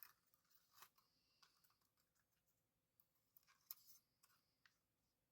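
Faint, scattered clicks and short light scrapes from a small plastic drone being handled.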